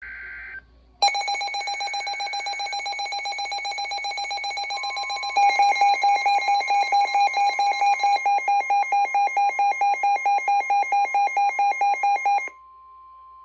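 NOAA weather radios sounding a severe thunderstorm warning alert. A brief two-tone SAME data burst comes first, then the radios' rapid alarm beeping starts about a second in, with a second radio's louder beeping joining midway. Under it the steady 1050 Hz weather-alert tone sets in and carries on after the beeping stops near the end.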